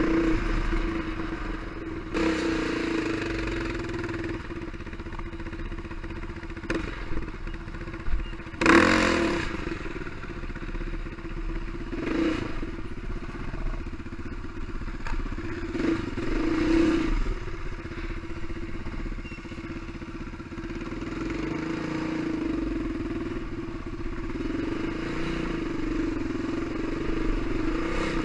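Off-road vehicle engine running steadily under the rider as it travels along a rough trail. About a third of the way in there is a loud knock and rattle, with a few lighter knocks later.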